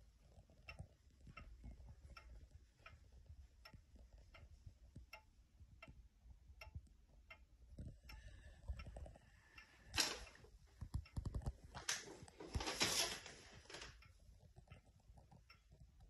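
Franz Effenberger Vienna regulator wall clock ticking steadily, about four ticks every three seconds. A sharp knock about ten seconds in and a longer rustling noise a couple of seconds later are louder than the ticks.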